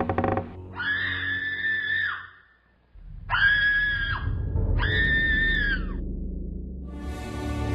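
Three drawn-out screams, one after another, each high and held, then falling away at the end, as a horror sound effect. A low rumble comes in under the second and third.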